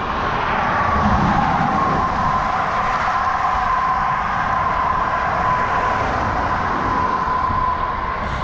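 Wind rushing over a bike-mounted camera microphone while cycling on a road, with steady road noise and a steady high whine.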